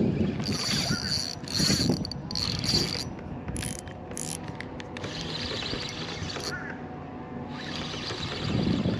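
Fishing reel being cranked in bursts, with a ratcheting, mechanical whirr, as a hooked mangrove snapper is reeled in. There are three quick bursts of cranking, then a few shorter ones, then two longer stretches of steady reeling.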